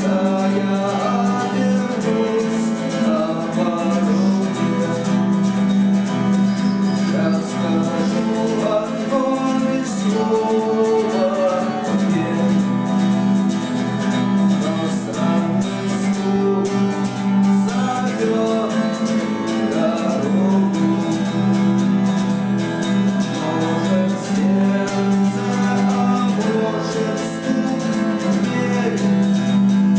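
Band music led by guitar: an instrumental passage of the song with no words sung, moving melody lines over a steady low note.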